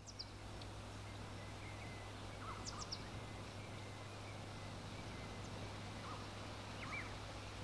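Faint outdoor night ambience: a steady hiss with a low hum underneath, and a few short bird chirps, a cluster about two and a half seconds in and a couple more near the end.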